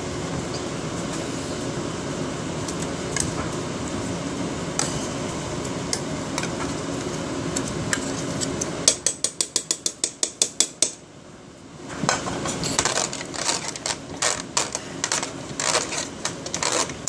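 A steady rushing noise for about nine seconds, then a utensil clinking fast against a bowl, about eight strikes a second for two seconds, followed after a short pause by irregular clinks and scrapes of food being mixed.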